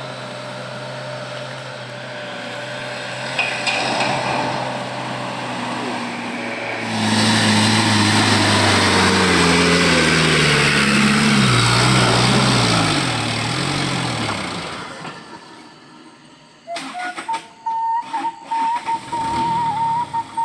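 Diesel dump truck loaded with oil palm fruit bunches, its engine running steadily, then growing much louder about seven seconds in as it drives past close by on a muddy track. The engine note falls in pitch as it goes and then fades. Near the end a wavering high tone comes in.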